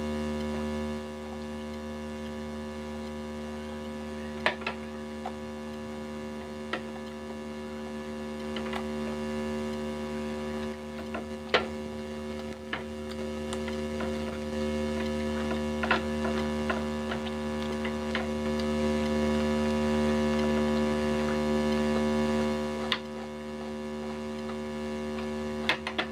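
Steady electrical mains hum, with scattered sharp clicks and light knocks as small ceramic bowls are moved and set down on a plastic plate.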